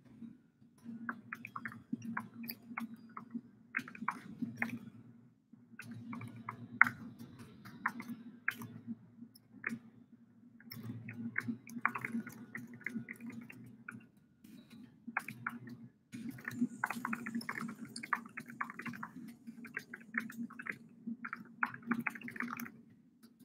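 Computer keyboard typing and clicking, fast and irregular, over a low steady hum. The sound cuts out completely for moments several times.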